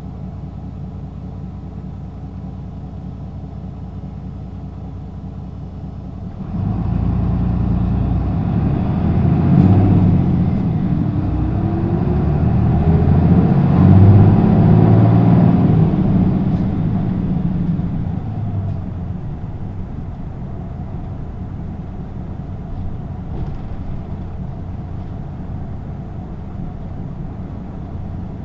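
Hino LKG-KV234N3 city bus's diesel engine idling, then pulling away about six seconds in. It revs up through the gears of its six-speed manual gearbox, the pitch climbing and dropping back at each shift, and eases off after about ten seconds to a quieter steady run.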